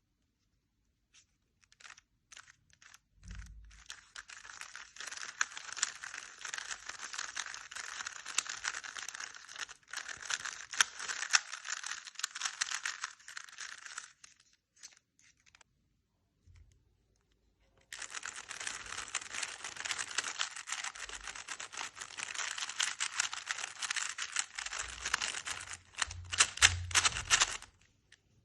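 GAN speedcubes, a GAN V100 Leap and a GAN 12 MagLev UV, turned fast one after the other: each gives a dense run of plastic clicking and clacking lasting about ten seconds, with a few seconds' pause between the two runs.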